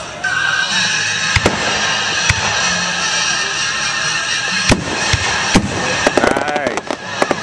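Aerial fireworks shells bursting: single bangs a second or more apart, then a fast run of crackling reports near the end.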